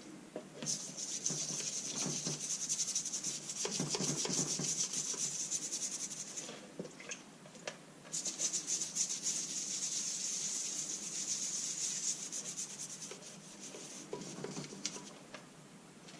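A toothbrush wetted with petrol being scrubbed briskly back and forth over a grimy lawnmower engine. The scrubbing comes in two long bouts with a short pause between them.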